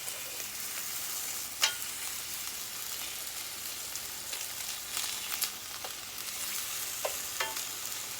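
Chicken tenders sizzling steadily in a hot frying pan, partway through cooking, just turned onto their second side. A few short, sharp clicks sound over the sizzle.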